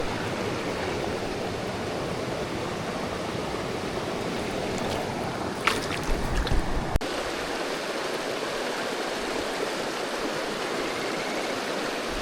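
River current running steadily over rocks, with a few short knocks about six to seven seconds in.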